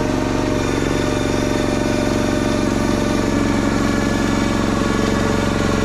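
Honda small gasoline engine, swapped into a John Deere 60 skid steer, running steadily at a constant speed. The owner believes the engine is a GX390.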